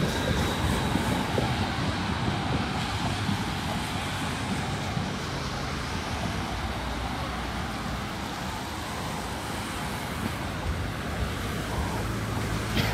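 Steady city street traffic noise, with a passing train fading away in the first couple of seconds.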